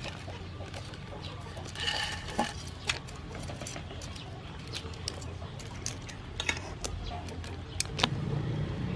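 Metal tongs and a slotted spatula clicking against a wide pan of boiling water as yellow noodle nests are turned in it, a few sharp clinks over a steady low rumble.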